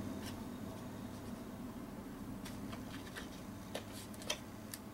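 Light ticks and taps of paper and chipboard being pressed down by hand onto patterned paper, several small clicks in the second half, over a steady low hum of room tone.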